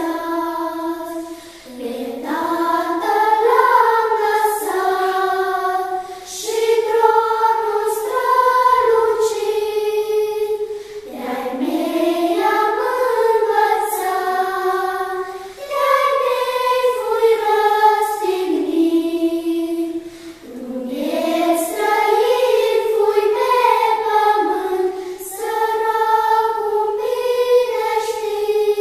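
A choir of girls singing a melody together in unison, with no accompaniment heard. The song moves in phrases a few seconds long, with short breaks for breath between them.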